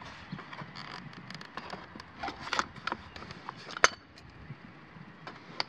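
Plastic engine shroud with built-in fuel tank being handled and fitted down over a small mower engine: scattered light clicks, knocks and rustles of plastic, with a sharper click a little under four seconds in.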